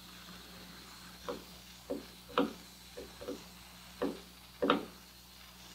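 A toy stationary steam engine being handled while its steam valve is opened, before it starts running: about seven short knocks and clicks at uneven intervals.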